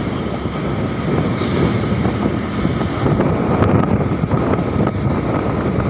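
Wind buffeting the microphone over steady road and engine noise from moving traffic.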